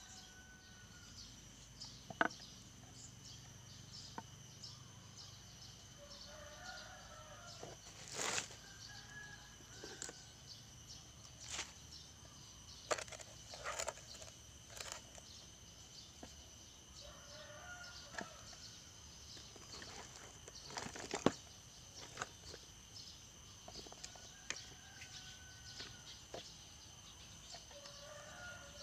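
Scattered clicks and knocks as an angle grinder and a cordless drill are handled on a wooden board, over a steady high insect drone. Chickens cluck faintly a few times.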